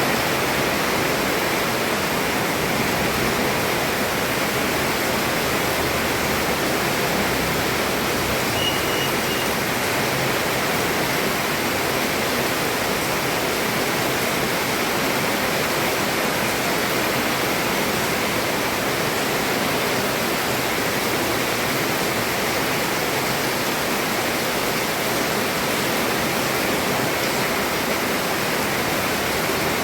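Heavy rain pouring steadily onto a roof, an even hiss with no thunder.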